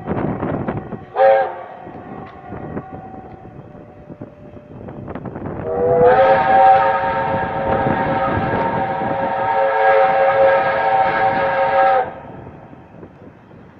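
Steam locomotive whistle blowing: a short toot about a second in, then a long blast of about six seconds that rises slightly in pitch as it opens and cuts off sharply.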